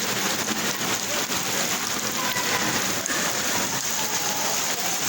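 Rain falling steadily, an even hiss of many drops striking surfaces without let-up.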